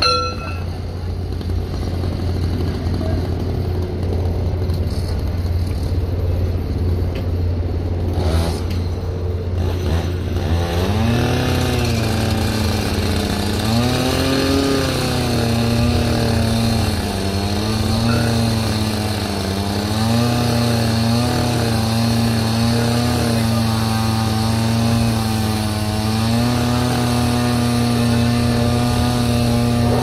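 Engines running at a railway track-laying site: a steady low drone, joined about ten seconds in by a second engine note that rises, wavers up and down a few times, then settles into a steady higher hum.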